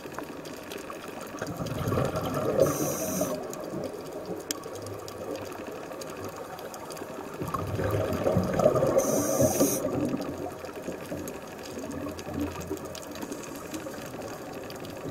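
Scuba regulator breathing heard underwater: two long exhalations of bubbling, about two and eight seconds in, each with a short high hiss near its end, over a steady watery background.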